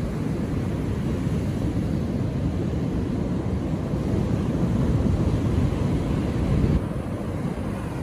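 Ocean surf breaking and washing on a sandy beach, a steady low rumbling rush, with wind buffeting the microphone. It eases a little about seven seconds in.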